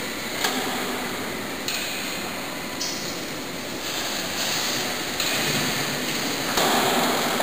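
Toyota forklift running steadily with a hiss and hum while it sets its load down onto a raised stand. There are a couple of light knocks in the first two seconds, and it grows louder near the end.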